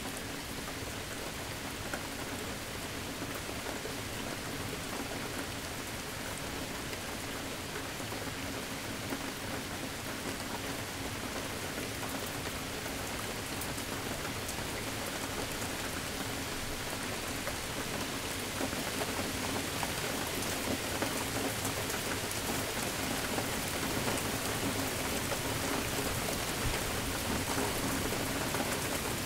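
Steady rain falling and pattering on surfaces, growing a little heavier about two-thirds of the way through.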